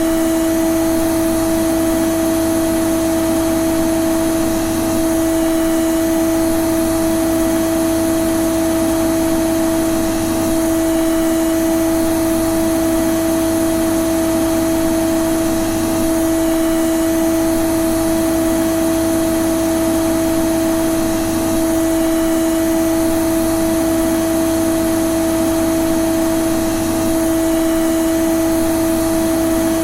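Vacuum cleaner running steadily: a constant motor whine at one unchanging pitch over a rushing of air.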